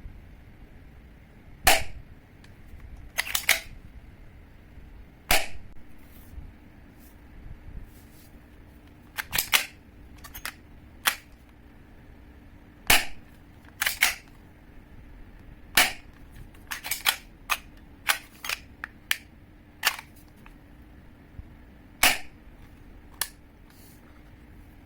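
Well P361 M1911A1 spring airsoft pistol being worked: sharp mechanical clicks and snaps at irregular intervals, some coming in quick pairs or clusters, over a faint steady hum.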